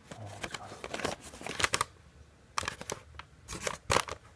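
Brown paper bag crinkling and rustling in bursts as a cat bites and claws at it, with a short lull about halfway through.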